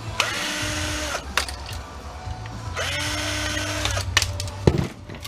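Small electric motor, like a cordless power screwdriver, spinning up and running for about a second, twice, with a sharp knock near the end.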